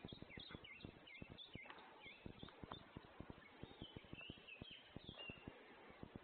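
Faint forest birdsong: a small bird gives a run of quick, dipping chirps in the first two seconds and a few more around the middle. Under it, a steady patter of faint low clicks and thumps.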